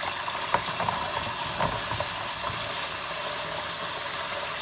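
Tap water running steadily over oysters being rinsed in a sink, with a few short clacks of shell against shell in the first two seconds.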